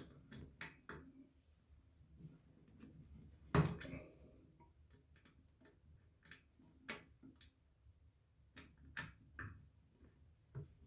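Scattered light clicks and taps, irregularly spaced, with one louder knock about three and a half seconds in, as of small hard parts being handled.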